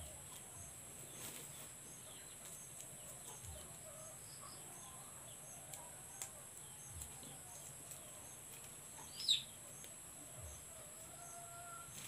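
Quiet background with faint bird chirps, and one short, louder falling chirp about nine seconds in.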